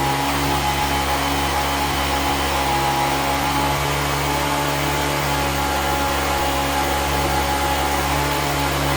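An electric motor-driven shop tool running steadily at constant speed, a hum with a steady whine over it.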